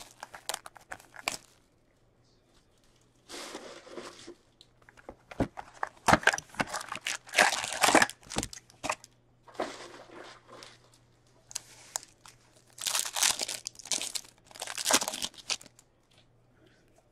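Plastic wrapping on a hockey card box and its card packs crinkling and tearing as they are pulled open by hand, in several bursts of a second or more with short quiet gaps between.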